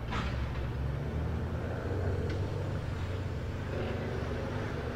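Off-road competition truck's engine running under load as it drives through a creek, a steady low drone that swells a little in the middle.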